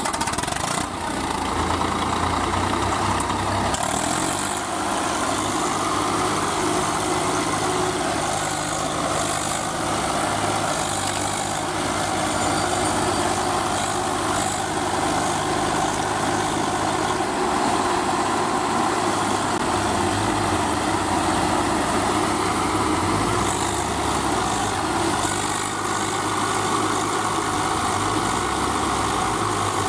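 Farm tractor diesel engines running steadily under load as a line of tractors drags through deep mud, with a low engine hum. One of the engine notes changes about halfway through.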